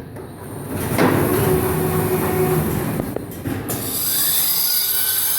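Automatic film-slitting machine running. A motor hum starts about a second in, and from about four seconds in a high hiss with a thin squeal takes over.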